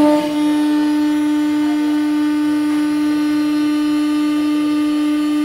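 CNC router spindle running with a steady, high whine that holds one pitch.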